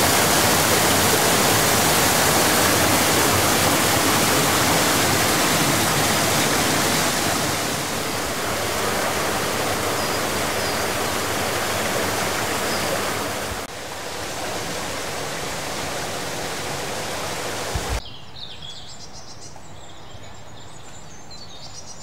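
Water pouring and splashing down the channel beneath an old iron waterwheel, a loud, steady rush that steps down in level twice. About three-quarters of the way in it gives way to a much quieter stream with birds chirping faintly.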